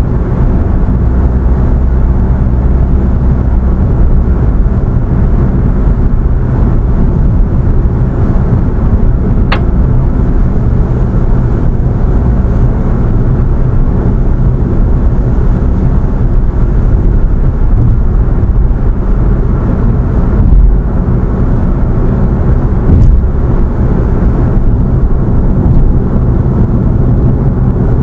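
Car driving steadily at road speed: a continuous low rumble of engine, tyres and wind noise, with one brief click about nine and a half seconds in.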